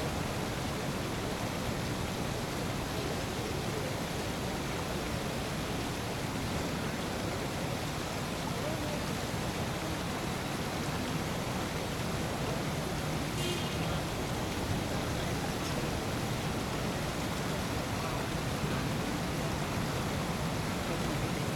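Steady, even outdoor background noise like a hiss, with a short high chirp about thirteen seconds in.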